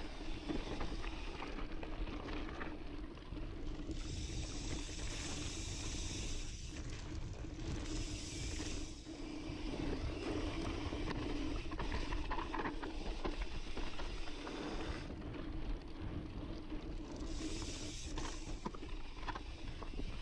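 Intense Sniper mountain bike coasting down a dry, loose dirt trail, heard from the onboard camera: tyre and trail noise over the dusty ground, with rattling from the bike and the rear hub ticking as it freewheels. A hiss swells up several times along the way.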